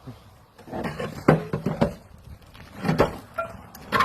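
Heavy parts of a gunite machine being handled during teardown: a run of separate knocks and clunks, several close together about a second in and more near the end.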